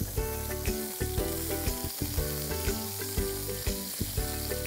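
Marinated chicken pieces sizzling as they fry in oil in a frying pan, with a wooden spatula knocking and scraping against the pan as they are stirred. Background music with a quick melody plays over it.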